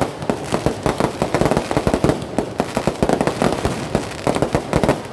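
Fireworks and firecrackers going off in a dense, continuous barrage of sharp bangs and pops, many a second.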